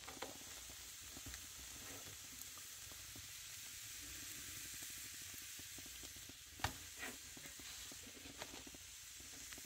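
Faint steady hiss and light sizzle from a gas stove burner as a flour tortilla is warmed directly over its open flame. A short tick about two-thirds of the way in.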